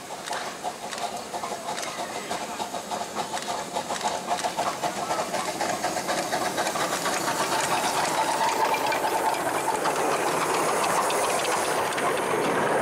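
Miniature steam locomotive working a passenger train: quick, rhythmic exhaust beats over steam hiss, growing steadily louder as it approaches and passes close by, with its carriages rolling past near the end.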